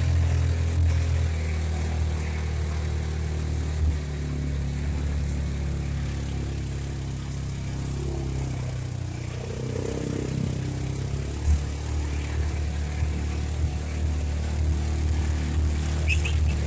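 Polaris side-by-side utility vehicle's engine running steadily at low trail speed, with two brief knocks as it goes over bumps.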